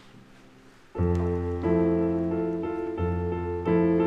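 Background piano music: held chords over a low bass note, starting abruptly about a second in.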